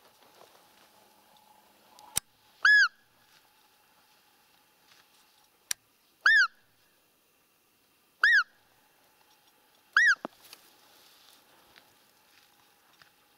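Roe deer lure call blown four times, a few seconds apart: short piping squeaks that rise and fall in pitch. They imitate a doe's fiep to draw a rutting roebuck. There are two sharp clicks, about two seconds in and just before the second call.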